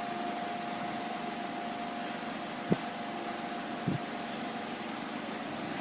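Steady mechanical hum of a running semi-automatic PET blow molding machine, with a constant faint whine. Two sharp knocks a little over a second apart around the middle, as the preform is handled at the mould.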